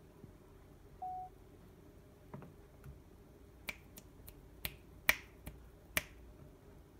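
A smartphone camera's short start-recording beep, then a quick run of about seven finger snaps beside the phone, four of them loud.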